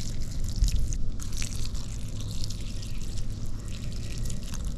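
A thin stream of water pouring and splashing onto mud-caked foam clogs and the dirt around them, washing the mud off. The splashing breaks off sharply about a second in, then carries on.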